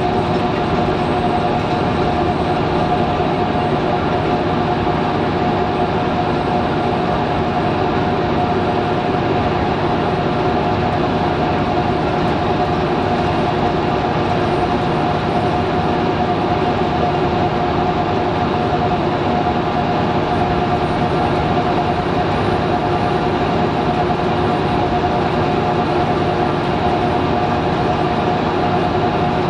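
Inside the cabin of a Scania L94UB Wright Solar single-deck bus travelling at a steady speed: its diesel engine and drivetrain run with a constant high whine over a steady rumble of road and tyre noise.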